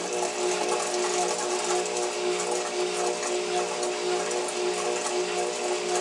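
Sears Kenmore Series 500 (25132) high-efficiency top-load washing machine running on a Normal Wash cycle: a steady motor hum over an even rushing noise, its level wavering slightly as the machine vibrates.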